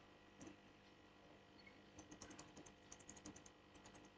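Faint typing on a computer keyboard: a single keystroke early on, then a quick run of keystrokes in the second half.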